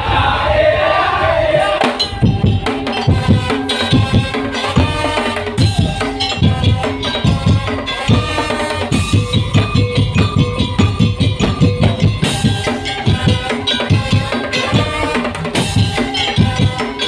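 Madurese tong-tong percussion ensemble playing: wooden slit drums and drums beat a steady, dense rhythm. A chanted vocal phrase opens it and gives way to the percussion about two seconds in.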